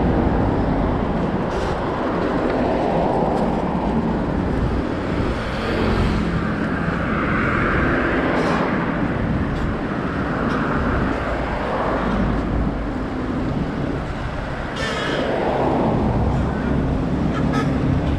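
Road traffic on a busy street, with vehicles passing one after another, the loudest passes coming about eight seconds in and again about fifteen seconds in.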